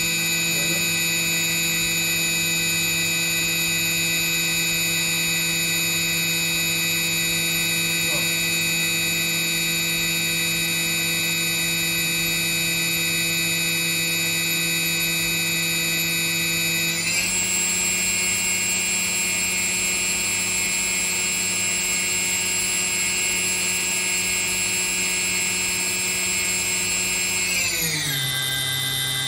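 Hitachi Seiki HS500 horizontal machining center's spindle running without cutting, a steady whine of several tones together. The pitch steps up a little about two-thirds of the way in, then glides down near the end as the spindle slows to a lower speed.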